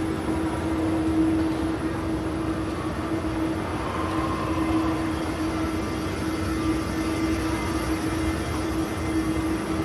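A steady mechanical hum with one constant droning tone over a dense rushing background.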